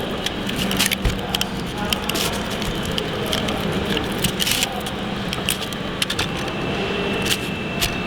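Light metallic clicks and clinks, many short and irregular, from a CV joint and driveshaft being handled and taken apart during a boot replacement, over a steady workshop hum.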